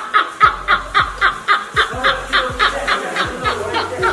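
Men laughing hard, an unbroken run of short 'ha-ha' bursts at about five a second.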